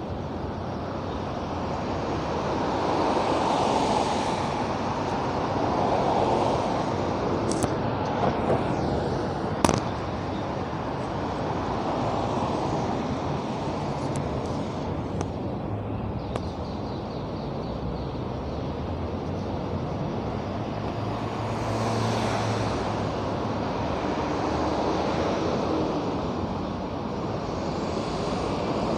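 Road traffic going by: vehicles pass one after another, the noise swelling and fading several times. A couple of short sharp clicks stand out about a third of the way in.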